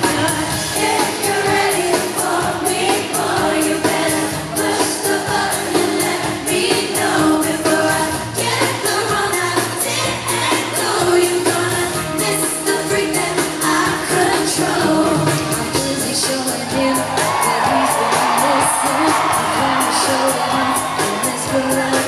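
Live pop song through a concert PA: women singing lead vocals into microphones over an electronic backing with a steady beat, heard from within the audience.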